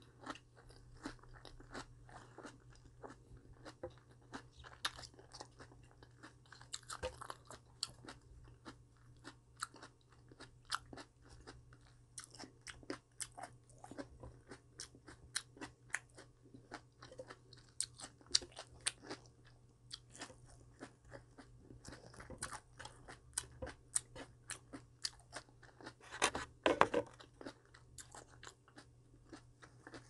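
A person chewing crisp vegetables from a cabbage and perilla-leaf wrap, close to the microphone. It is a continuous run of crunches, with a louder stretch of biting near the end.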